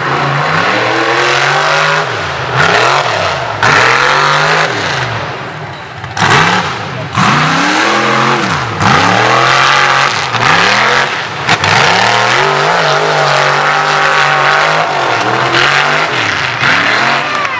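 Mud bog truck's engine revving hard and repeatedly as it drives through the mud pit, its pitch climbing and falling back about once a second as the throttle is worked.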